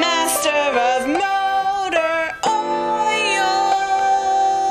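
Advertising-jingle music with a voice singing; about halfway through, the voice settles into one long held note with vibrato.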